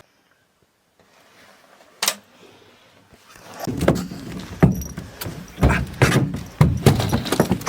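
A single sharp click, then a busy run of knocks and clatter over a low rumble, like gear being handled.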